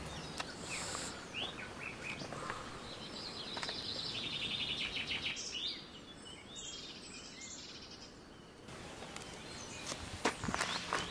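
Outdoor ambience of birds chirping and calling over a low steady hiss, with a rapid trill a few seconds in. Near the end come a few short scuffs of a shoe on gravelly dirt.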